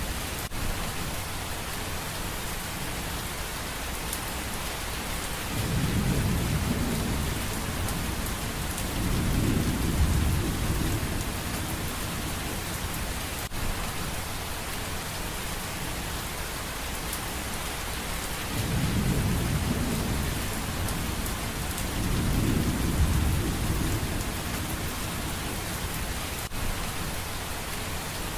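Steady rain hiss with low rumbles of thunder that swell and fade four times, in two pairs.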